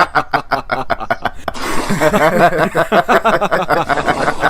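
A person laughing in quick repeated bursts, with a hiss joining in about a second and a half in.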